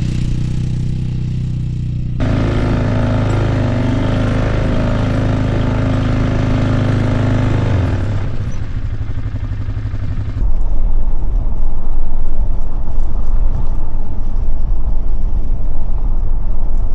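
Vehicle engine running steadily for about eight seconds, with a sudden shift about two seconds in. From about ten seconds in, loud wind buffets the microphone.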